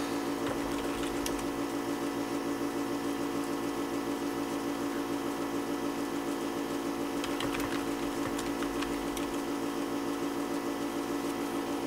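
Steady machine hum made of several fixed tones with a fast, even flutter, and a few faint clicks about a second in and again about seven and a half seconds in.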